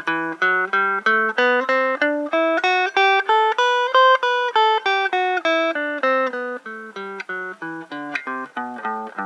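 Electric guitar with a clean tone playing a G major scale three notes per string, one picked note at a time at about four notes a second. It climbs from the low G on the third fret over two and a half octaves, turns about four seconds in, comes back down and ends on the held low note.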